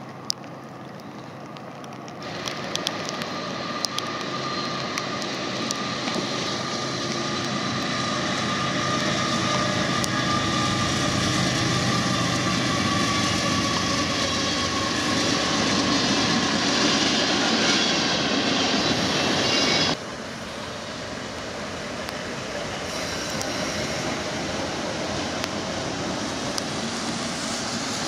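Freight train passing close behind a CSX diesel locomotive: engine running and wheels rolling on the rails, growing steadily louder, then cut off abruptly about 20 seconds in to a quieter, steady rumble of the rolling train.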